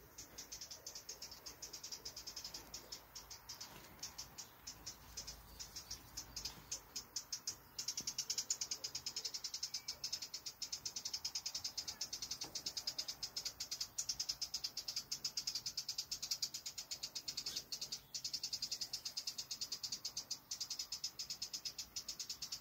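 High-pitched, fast, regular ticking or scolding chatter from an animal in the trees. It is uneven and sparser for the first few seconds, then from about eight seconds in it becomes louder and unbroken, with two short pauses near the end. The uploader asks whether it is European robins scolding.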